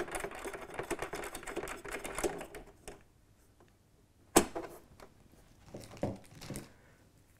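Metal TV wall-mount bracket rail and M6 bolts rattling and clicking in quick, irregular succession as they are fitted to the back of a TV, for about three seconds. Then a single sharp click, and a few softer knocks near the end.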